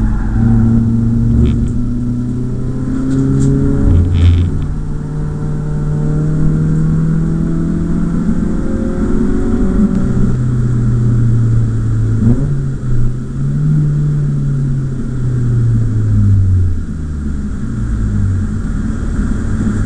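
BMW E36 318is four-cylinder engine heard from inside the cabin, revs climbing and falling repeatedly through gear changes as the car is driven on track; near the end the revs drop away and it runs lower.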